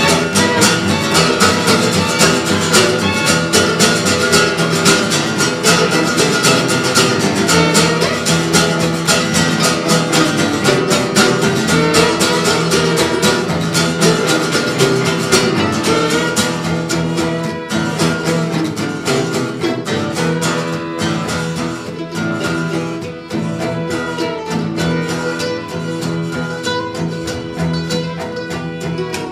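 Acoustic string band playing an instrumental tune: fiddle and cello bowing over strummed acoustic guitar and picked mandolin. The playing eases a little in loudness about halfway through.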